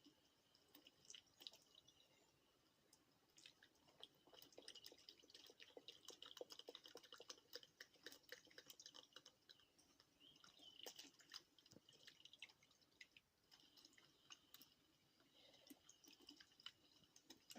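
Near silence with faint, irregular small clicks and crackles over a faint steady hiss. The clicks are busiest in the middle.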